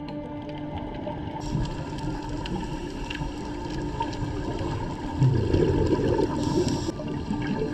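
Underwater sound through a camera's dive housing: a scuba diver's breathing through the regulator and exhaled bubbles over a steady low hum, with a louder rush of bubbles about five seconds in lasting under two seconds.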